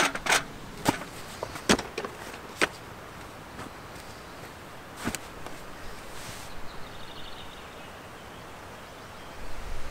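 Folding camp chair being put together: a quick run of sharp clicks and knocks as its metal frame poles snap into place, then a single knock about five seconds in.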